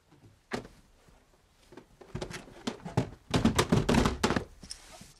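A heavy television set being shoved off and bumping onto the floor: a single knock, then a run of thuds and clatter that is loudest a little past the middle.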